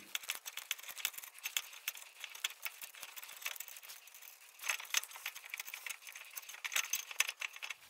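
Faint, irregular metallic clicks and rattles from a disc brake caliper wind-back tool and its key as the lever is turned to screw the piston back into a screw-in rear brake caliper, with a short cluster of louder clicks about five seconds in.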